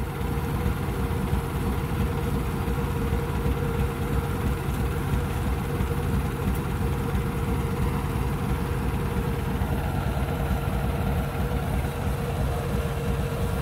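Kubota DC93 rice combine harvester running steadily: a constant engine drone with an even, higher-pitched hum from its machinery.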